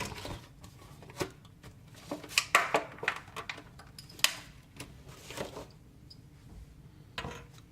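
Hands handling a trading-card box's cardboard and plastic packaging: irregular rustles, clicks and taps, the sharpest about two and a half and four seconds in.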